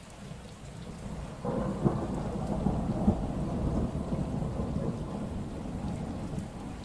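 Thunder over steady rain: a low rumble builds, breaks into a louder crackling peal about a second and a half in, and slowly dies away.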